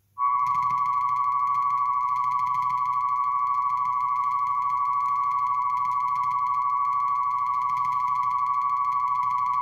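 Test-record track of 1000 Hz and 1125 Hz tones with a 13 Hz low-frequency signal, played by an Audio-Technica AT3600L cartridge on a Dual 721 turntable. It is one step of a tonearm resonance test. A steady high tone with a slight rapid wobble starts a moment in, over a faint low hum.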